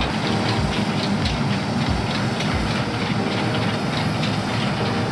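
A large excavator's engine running steadily, with a rapid clicking clatter and a few low thumps.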